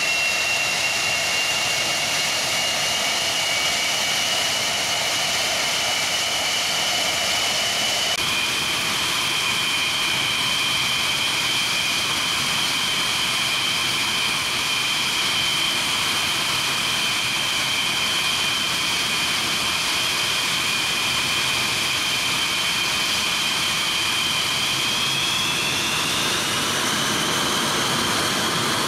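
English Electric Lightning's twin Rolls-Royce Avon turbojets running on the ground with a steady high whine over a loud roar. The whine steps up in pitch about eight seconds in and rises again near the end as power is added for taxiing.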